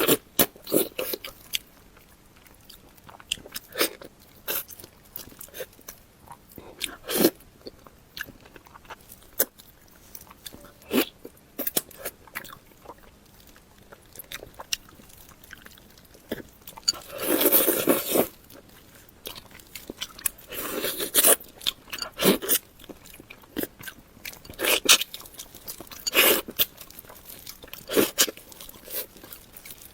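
A person eating close to the microphone: irregular crunching bites and wet chewing, with one longer, louder crunching burst a little past the middle.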